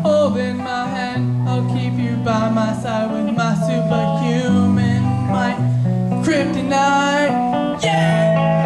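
Live acoustic guitar playing a rock song, chords ringing with low notes that change every second or so, and a voice singing over it.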